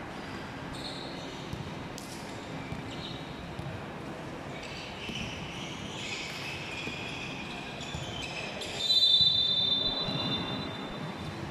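Referee's whistle blown in one loud, steady blast about nine seconds in, the signal to serve in a volleyball match. Before it, the echoing hubbub of players and spectators in a large sports hall, with a few knocks like the ball bouncing on the court floor.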